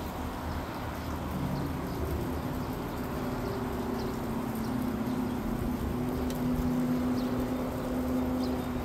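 A motor running with a steady low hum, getting slightly louder about two-thirds of the way through, with a few faint high chirps.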